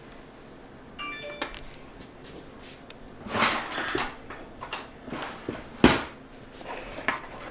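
Tableware being handled: a short ringing clink about a second in, then rustling and a few sharp knocks, the loudest shortly before the end.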